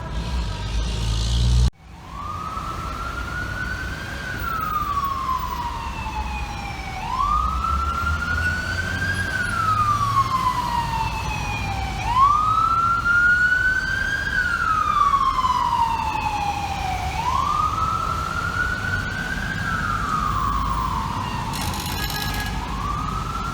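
Fire truck siren wailing in slow cycles, each a quick climb in pitch and a longer glide down, about five seconds apart, over a steady low engine and traffic rumble. Before it a different steady pitched sound cuts off abruptly, about two seconds in.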